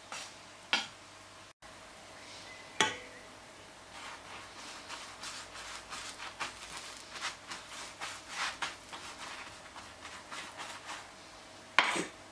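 A pastry brush dabbing melted butter over a cooked katmer flatbread on a griddle pan: a run of soft, quick strokes, with a few sharper knocks, the loudest near the end.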